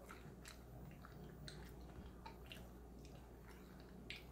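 Near silence with faint, scattered wet clicks from eating by hand: quiet chewing and fingers lifting a boiled potato out of sauce.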